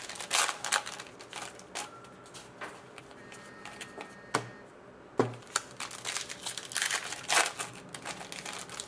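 Foil trading-card pack torn open and crinkled in the hands, then the cards slid and tapped against each other while being sorted, with two sharp taps about a second apart midway. More foil crinkling near the end as the next pack is opened.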